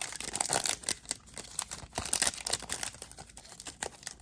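Wrapper of a Panini Chronicles football trading card pack crinkling and tearing as it is opened by hand, an irregular run of crackles and rustles.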